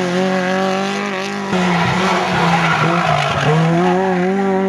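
Rally car engines revving hard out of a hairpin, one car after another. The first holds a high, steady note until it cuts off abruptly about a second and a half in. The next car's note dips about three seconds in, then rises steadily as it accelerates away.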